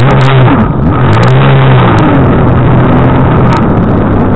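Jetski engine running hard at speed over a rush of water spray and wind; its pitch drops briefly about half a second in, climbs back, then holds steady.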